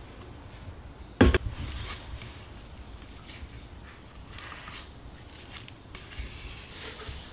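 A utensil knocking once sharply against a mixing bowl about a second in, then light scraping and small clicks as the cheesecake filling is worked in the bowl.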